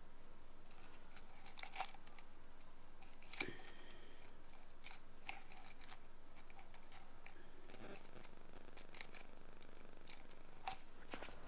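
Ear-picking tool scraping in an ear canal: faint, irregular scratchy crackles and clicks over a steady hiss, with two sharper clicks about two and three and a half seconds in.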